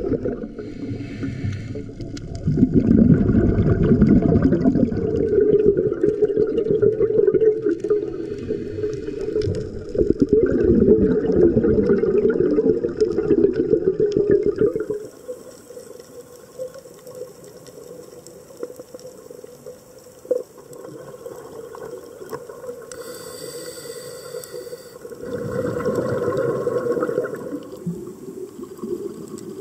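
Underwater camera audio of a scuba diver's exhaled bubbles rushing past in surges a few seconds apart. About halfway through it drops to a quieter underwater hiss, and another surge of bubbles comes near the end.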